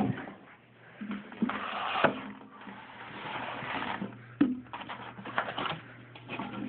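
Handling noise from unpacking a glass aquarium: cardboard and styrofoam packing rustling and scraping, with several sharp knocks and clicks as the foam corner pieces come off the tank. A low steady hum runs underneath.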